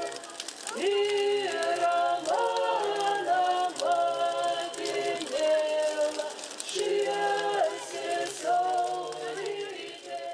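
Several voices singing together unaccompanied, in long held notes that move up and down in steps, fading near the end.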